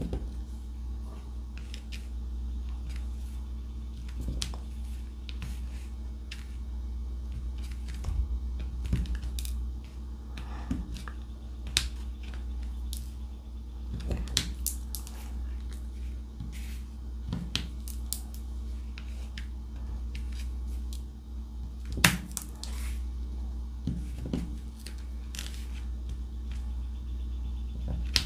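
Diamond painting drill pen picking up drills from a plastic tray and pressing them onto the canvas: scattered small clicks and taps at an uneven pace, over a steady low hum.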